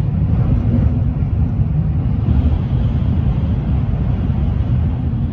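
Steady low rumble inside the passenger cabin of a Tohoku Shinkansen Hayabusa train running at speed on the line.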